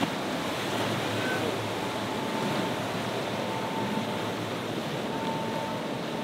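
Steady rush of choppy water and a speeding boat's spray and wake, with wind on the microphone and a faint steady whine.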